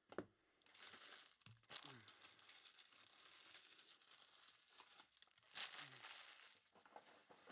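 Quiet crinkling and tearing of a Topps Merlin Chrome card pack wrapper being opened, with a louder rip about five and a half seconds in.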